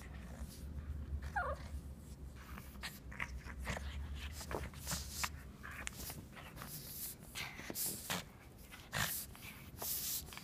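Pug playing rough with a plush toy: a string of short scuffling, rustling and mouthing noises as it grabs and shakes the toy, with one short squeal sliding down in pitch about a second and a half in.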